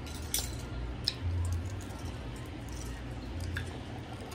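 Shrimp being chewed and peeled by hand: wet squishy chewing with a few sharp crackles of shell, over a steady low rumble.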